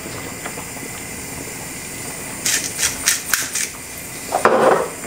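Pepper mill grinding black pepper: a quick run of short crunchy clicks about halfway through, followed near the end by a short, louder rattle, over a steady background hiss.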